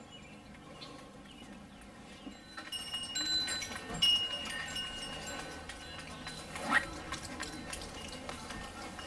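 Wind chimes ringing, several bell-like notes overlapping and fading, starting a few seconds in. A sharp knock comes about four seconds in, and a short squeak near seven seconds.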